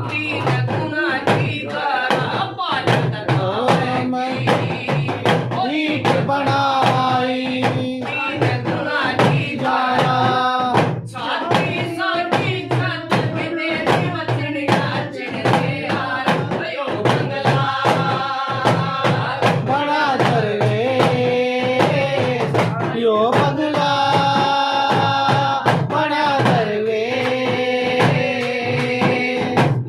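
Devotional bhajan music: a male voice singing a melody over a steady drum beat and sustained instrument tones.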